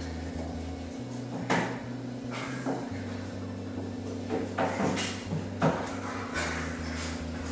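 Quiet background music with a low bass line that steps from note to note, and a handful of sharp knocks and taps scattered over it.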